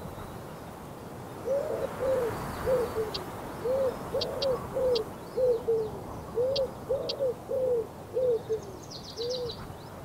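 Common wood pigeon singing: three phrases of four or five low coos each, every coo rising and falling in pitch. Small birds give a few short high ticks alongside, and a quick high twitter near the end.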